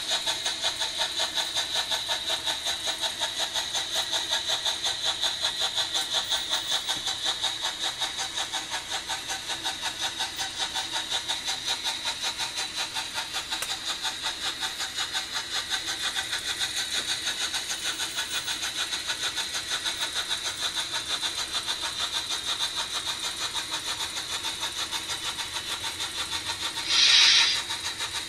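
Märklin H0 model freight train running past on the layout: a steady, rhythmic clatter of about five beats a second from the wagons and running gear on the track. A short, louder hiss cuts in about a second before the end.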